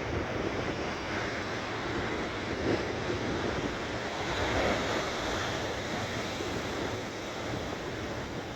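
Rough ocean surf breaking and washing in heavy, storm-driven swell, a continuous rushing with slow swells in loudness, and wind buffeting the microphone.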